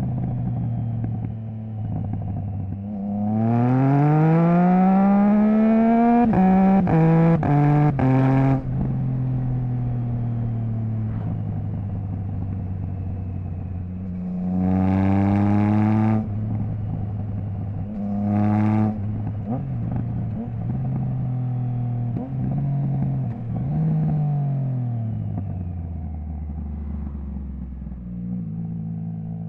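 Triumph Trident 660's inline-three engine through a Zard stainless full exhaust with the baffle removed, accelerating through the gears with several quick, clipped quickshifter upshifts. It then gets two shorter bursts of throttle, and near the end it slows with falling revs to a low, steady idle.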